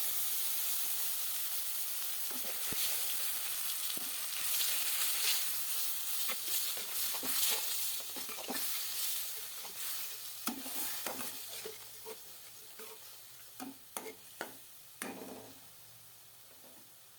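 Ground spices in hot oil in a karahi sizzling hard from a splash of water just added, the sizzle fading steadily over the seconds. The mixture is stirred, with scrapes and knocks against the pan that stand out more near the end.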